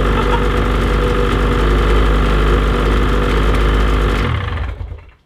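Ski-Doo MXZ 850 snowmobile's two-stroke twin engine idling steadily, then switched off about four seconds in and winding down to a stop.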